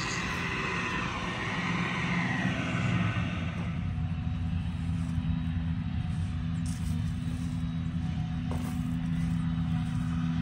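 Forage harvester at work chopping a standing crop: engine and cutterhead make a steady rushing noise for the first few seconds. About four seconds in, the rush falls away, leaving a steady low engine hum.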